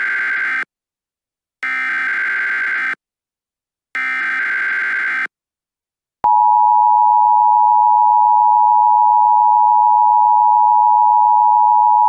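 Emergency Alert System header: three short bursts of buzzy digital data tones about a second apart, the first already under way. About six seconds in, the loud, steady two-tone EAS attention signal starts and holds.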